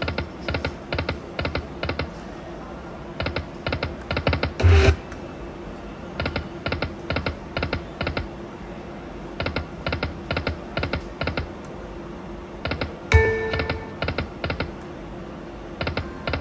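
Aristocrat Lightning Link slot machine spinning: runs of about five quick clicks as the reels stop one after another, repeating every couple of seconds over a steady low tone. Two louder hits with short electronic tones come about five and thirteen seconds in.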